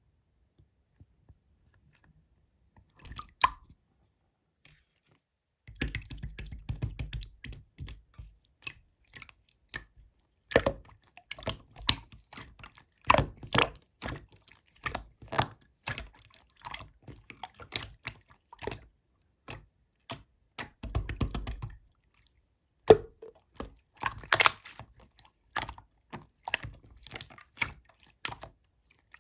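Slime being squeezed and poked by hand, giving quick sticky clicks and small air-bubble pops, starting after a few quiet seconds.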